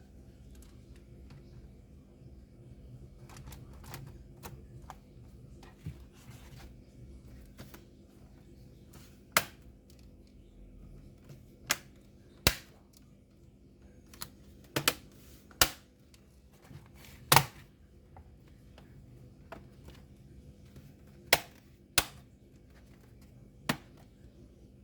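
Dell Latitude 3580 laptop being reassembled: about a dozen sharp, irregular clicks and snaps of its parts and fasteners going back into place, over a low steady hum.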